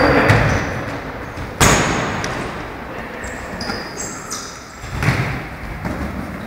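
Indoor five-a-side football in a sports hall: a hard thud of the ball being struck about one and a half seconds in, echoing off the hall walls, among players' running feet and short high squeaks of shoes on the court floor.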